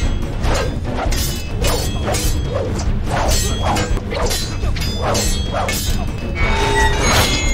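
Film fight-scene soundtrack: dramatic score under a fast run of sharp whacks and clashes, the effects of a wooden pole fight against a sword, a strike every third to half second.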